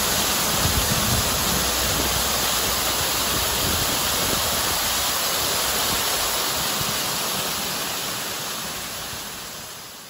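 Waterfall: a steady, even rush of falling water that fades out over the last couple of seconds.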